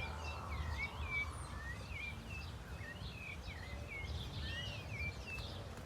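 Songbirds chirping and singing, a busy run of short whistled notes that bend up and down, over a steady low rumble.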